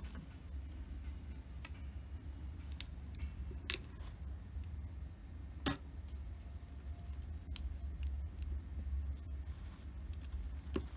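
Sharp clicks from a small tactile push switch on a CD player's front-panel circuit board as fingers press and handle it. There are a few louder clicks, about four, six and eleven seconds in, with fainter ticks between them, over a steady low hum.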